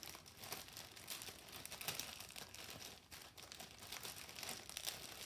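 Clear plastic bag crinkling as hands rummage through the small plastic packets of diamond-painting drills inside it: a continuous light crackle of many small clicks.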